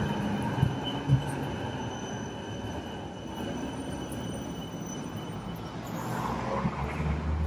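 Coastal Tram tram on metre-gauge track rolling past close by: a steady running noise with a thin high whine that stops about six seconds in, and a deeper rumble building near the end.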